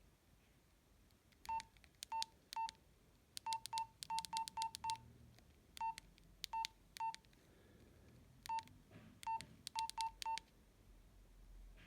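Nokia 112 keypad tones: short single-pitched beeps, each with a click, as the keys are pressed. There are about seventeen presses in uneven bursts, some quick runs and some single presses.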